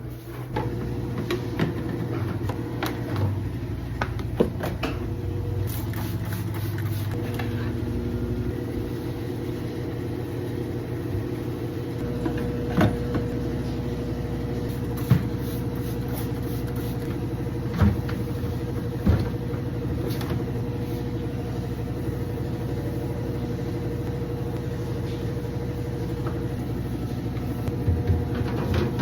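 A steady motor hum with a few sharp clicks and knocks over it.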